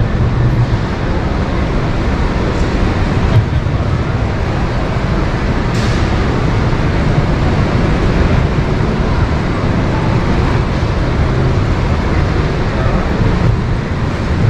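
Steady background noise of a large exhibition hall, heaviest in the low end, with faint voices in the background.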